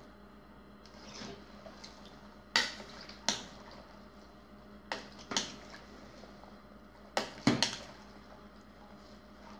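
A metal spoon stirring corn kernels and chopped chilacayote in water in a pot, clacking and scraping against the pot's side. About seven sharp knocks come at irregular intervals, the loudest about two and a half seconds in and again around seven and a half seconds, with quieter wet stirring between them.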